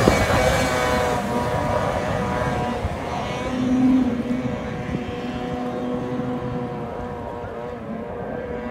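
Ski-Doo 600 RS snowmobile's two-stroke engine running at steady high revs as the sled skims across open water, growing fainter as it moves away. The hiss of its water spray dies away within the first second.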